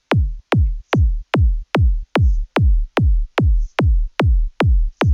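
Electronic kick drum looping alone at a steady four-on-the-floor tempo of about two and a third hits a second, each hit a short pitch drop into deep bass, running through the Bark of Dog 2 low-end enhancer while its boost frequency is set. A faint high tick falls on every third hit.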